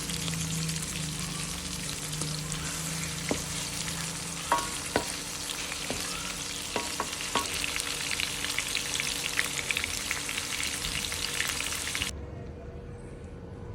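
Food frying and sizzling in hot oil as it is stirred, a dense crackle, with several sharp ringing clinks of a utensil against the pan in the middle. The frying cuts off suddenly near the end, leaving a quieter background.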